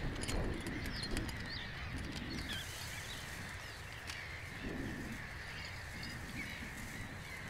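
Gull colony calling: a steady background of many distant gull calls, with fainter individual calls now and then.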